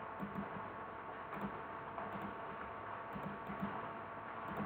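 About seven soft, irregularly spaced clicks from a computer mouse and keyboard, over a faint steady hiss and hum.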